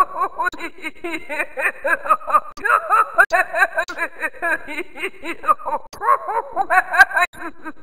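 Mac OS 9 text-to-speech synthetic voice reading the typed transliterated Russian greeting aloud, as a fast run of syllables with a quickly wavering pitch.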